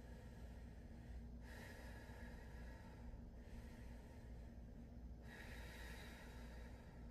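A woman breathing slowly while holding a standing yoga pose. The breaths are faint and soft, each lasting about two seconds, over a steady low room hum.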